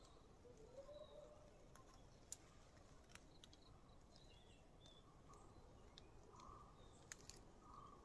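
Near silence: faint steady background hiss with a few brief, soft bird chirps and scattered small clicks.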